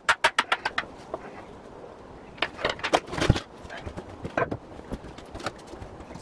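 Ratchet wrench clicking rapidly as a floor bolt in a bus's passenger area is turned, then metal clanks and a heavier thud as a loose steel grab pole is lifted, followed by scattered knocks and steps on the floor.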